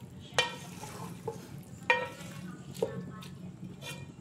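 A spoon knocking against the pot of pumpkin and chana dal while stirring: two sharp ringing clinks, about half a second and two seconds in, with lighter taps between, over a low steady hum.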